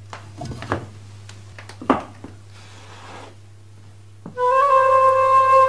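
A few handling knocks and clicks as a record is set on an electric gramophone and the pickup lowered with a click. About four seconds in, a flute melody starts loudly from the record, opening on a long held note.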